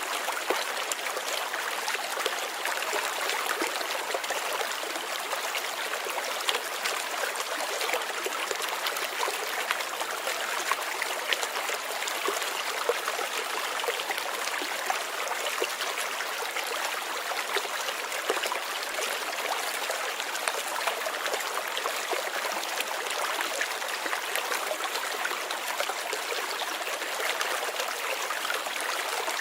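River water running over rocks: a steady rushing and babbling flow, with many small splashes and trickles and no change in strength.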